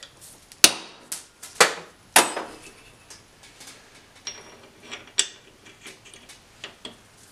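Metal tools clanking against an open car differential carrier: three loud, sharp metallic strikes with a short ring in the first couple of seconds, then lighter taps and clicks.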